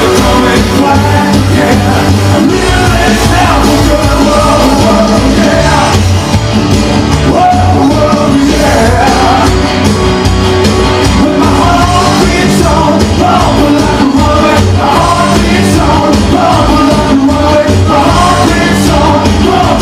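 Rock and roll recording playing, with singing over a steady beat.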